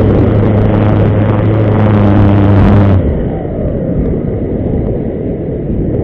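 Bixler 3 RC plane's electric motor and propeller droning at a steady pitch, then cut off abruptly about three seconds in, leaving only a low rush of air noise.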